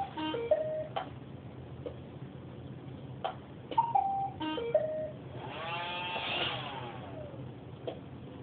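Roomba robot vacuum playing its error tune: a short falling two-note beep followed by a quick run of stepped electronic tones, heard twice about four seconds apart, with a longer wavering sound about six seconds in. The robot is stuck and waiting to be moved and restarted.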